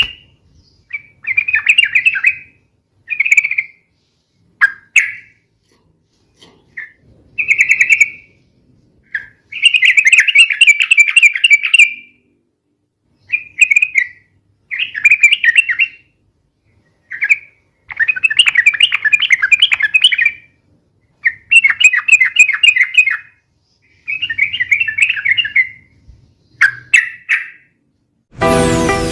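Yellow-vented bulbul giving repeated bursts of fast, rolling chattering song, each burst lasting up to about two seconds with short pauses between. Music comes in near the end.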